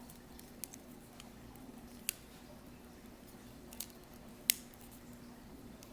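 Small plastic infinity cube fidget toy being flipped and folded in the hands, giving a few scattered sharp clicks at uneven intervals, the loudest about four and a half seconds in.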